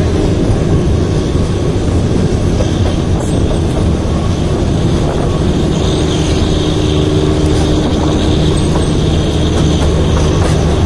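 Narrow-gauge train heard from on board while it runs: a steady rumble and rattle of the coach and wheels on the rails. A steady hum joins in about six seconds in.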